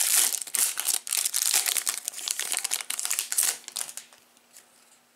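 Foil wrapper of a Bowman Chrome trading-card pack crinkling and tearing as it is pulled open by hand, the crackling dying away about four seconds in.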